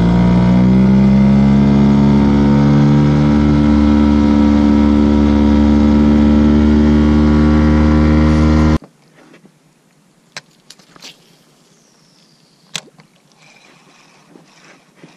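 Boat motor on an inflatable boat speeding up, then running steadily, and cutting off suddenly about nine seconds in. After that it is quiet apart from a few faint clicks.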